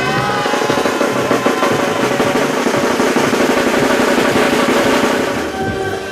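A long snare drum roll over music, tailing off about five and a half seconds in.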